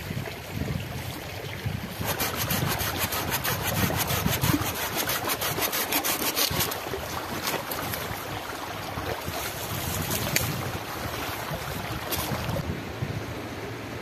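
Hand saw cutting through a green branch, quick back-and-forth strokes starting about two seconds in. Near the end the sawing stops and a stream's steady rush takes over.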